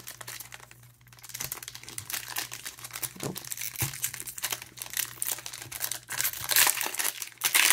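Metallic foil trading-card pack crinkling in the hands and being torn open across the top, a dense irregular crackle that gets louder near the end.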